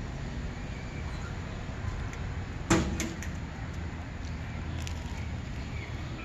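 Steady low outdoor rumble with one sharp knock a little under three seconds in, followed by a couple of lighter clicks.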